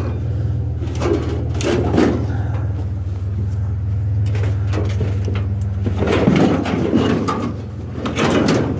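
Scrap metal clattering and scraping as it is shifted around in a pickup truck bed, in several short bouts, loudest about six to seven seconds in. A steady low engine hum runs underneath, the truck idling.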